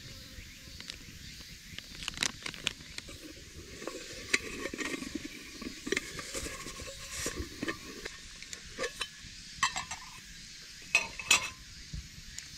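Camp gear being handled: a drip-coffee packet, then a metal camping mug slid out of its mesh pouch with rubbing and light knocks. Near the end come a few sharp metal clinks as the mug's folding handle is raised and its lid lifted off.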